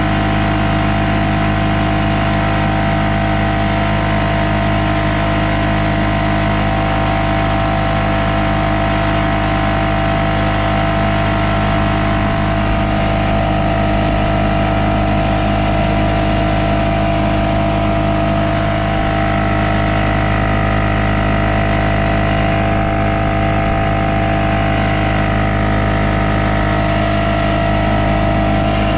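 Porter Cable pancake air compressor running steadily at constant speed, motor and pump running without a break, while the tank is not building any pressure.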